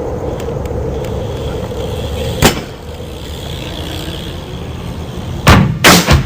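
Steady low rumble with a faint hum, broken by one sharp knock a little over two seconds in. Near the end, loud percussive hits come in as music begins.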